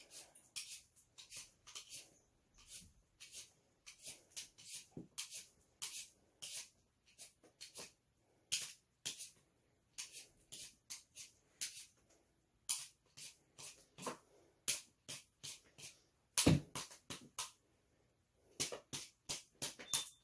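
Hand-held vegetable peeler scraping the skin off a potato in short repeated strokes, roughly one to three a second, with a louder knock about three-quarters of the way through.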